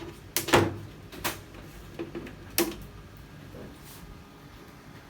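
A few sharp knocks and clatters, like objects being handled or set down, the loudest about half a second in, then three lighter ones over the next two seconds.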